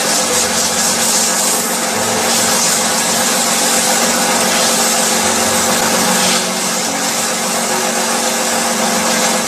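Water-oxygen facial beauty machine running: a steady motor hum under a strong hiss, the hiss easing slightly about six seconds in.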